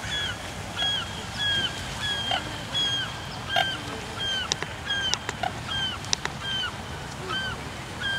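A waterfowl calling over and over, short honking notes about twice a second, with a few sharp clicks midway.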